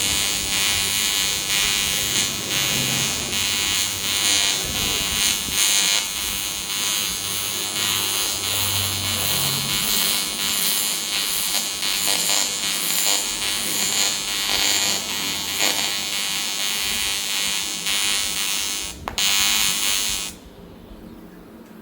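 AC TIG welding arc on aluminium buzzing steadily, breaking off for an instant and then cutting out sharply near the end as the torch is switched off.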